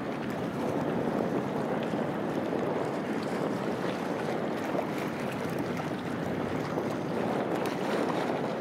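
Steady harbour-side ambience: wind buffeting the microphone over water lapping, with faint small ticks and no distinct engine or voice.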